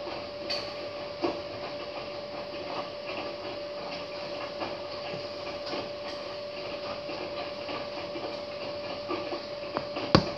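Hotpoint front-loading washing machine in its wash cycle, the drum turning and tumbling wet laundry: a steady motor hum under the swish and patter of clothes and water. A single sharp knock near the end.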